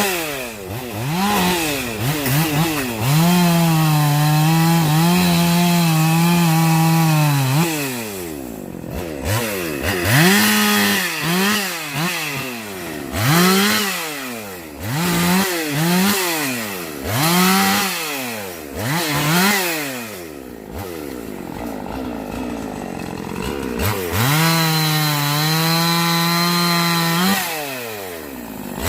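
Husqvarna two-stroke chainsaw delimbing and cutting up a tree, its engine revving up and falling back over and over. It is held at steady full revs for several seconds near the start and again near the end, and drops to a low idle for a few seconds before the end.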